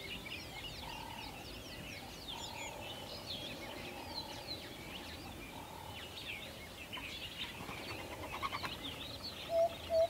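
Dense tropical forest bird chorus: many quick high chirps overlapping, with a lower call repeating about once a second. Near the end a quick rattling trill, then soft music comes in with a repeated note.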